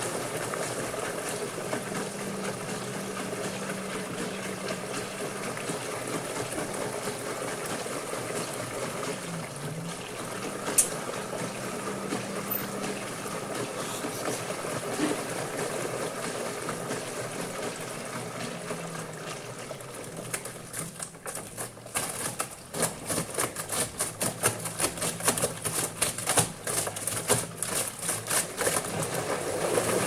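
LG front-loading washing machine drum turning wet towels with its door open: the motor hums steadily while water sloshes in the drum. From about two-thirds through, the load's tumbling becomes a quick, regular sloshing and slapping.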